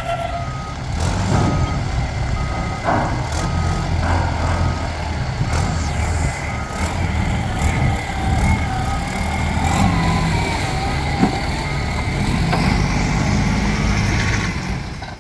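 A heavy machine's engine running, with its travel or reversing alarm beeping about twice a second and occasional knocks. The source is most likely the Nippon Sharyo DH408-95M pile driver rig.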